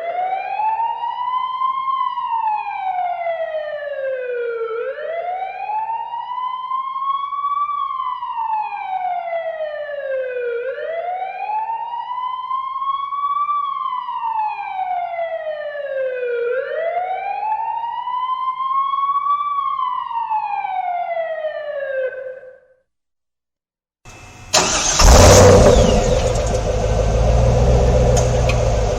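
An electronic siren wailing, rising over about two seconds and falling over about three, four times, then cutting off. After a second of silence a loud car engine sound starts suddenly: the sound effect of a car starting on a weak battery.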